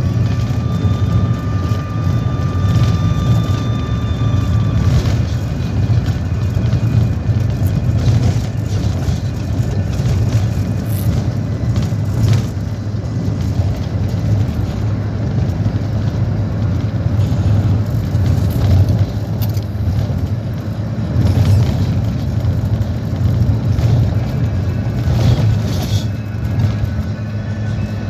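A steady, loud low rumble of a car, with music playing.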